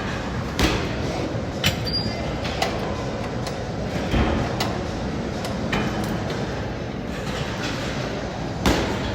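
Gym equipment knocking and clanking a handful of times during a set, over steady background noise.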